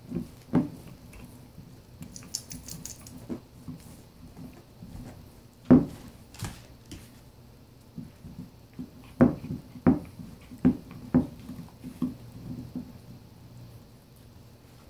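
Husky puppy gnawing a large chew bone on a hardwood floor: scattered sharp knocks and clicks as teeth and bone strike the wood, the sharpest about six seconds in and a quick run of them between nine and twelve seconds, over a faint low growl from the puppy guarding the bone.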